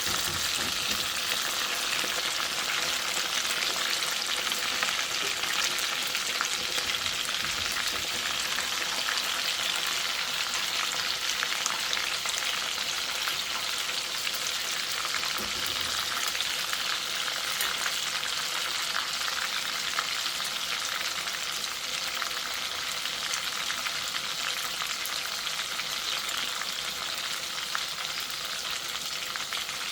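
Chicken frying in a pot of hot oil: a steady sizzling hiss with fine crackles.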